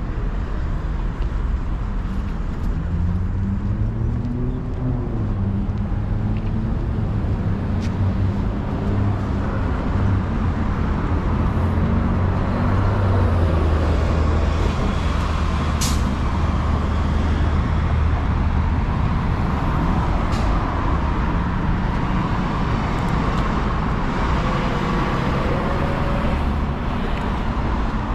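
City street traffic with a heavy road vehicle's engine running close by. Its pitch rises and falls a few seconds in, then it holds a steady low hum. A few sharp clicks or knocks stand out over the traffic noise.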